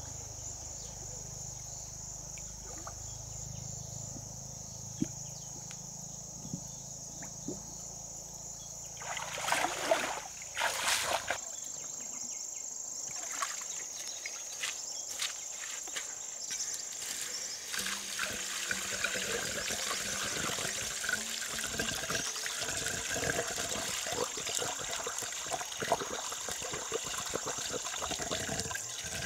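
Water trickling and splashing, getting fuller and busier in the second half, over a steady high insect drone. A low hum runs under the first third and stops, with a few louder knocks just before it does.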